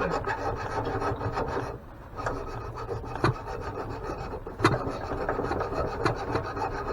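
Harsh rasping and scraping as a stuck part of an antique grain mill is worked loose, with two sharp knocks about three and four and a half seconds in.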